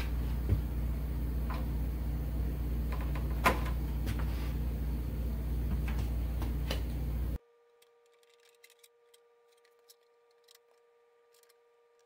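A steady low hum with a few sharp clicks and knocks as the car's cowl panel is handled with gloved hands. About seven seconds in, the sound cuts off abruptly to near silence, with only faint ticks.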